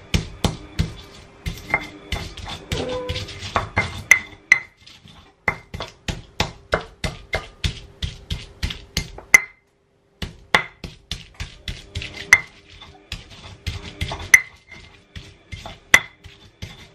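Stone pestle pounding shallots and garlic in a stone mortar (Indonesian cobek and ulekan): sharp stone-on-stone knocks, about two to three a second, crushing them coarsely into a spice paste. The knocking breaks off briefly about ten seconds in.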